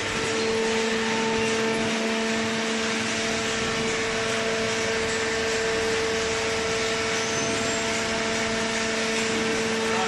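Hydraulic baler's power unit running: the electric motor and hydraulic pump give a steady hum with a constant whine over a hiss, holding level throughout.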